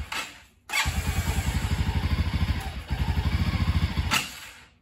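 2007 Can-Am DS250 quad's single-cylinder four-stroke engine dies, catches again under half a second later, runs unevenly with a brief stumble, then dies away again near the end. It is not very happy at too low an idle, and it is running very rich because the carburetor needle's clip is not attached.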